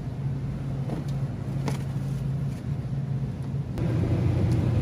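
Steady low hum of a supermarket's freezer aisle, with a few light clicks; about four seconds in there is a knock and the hum grows louder.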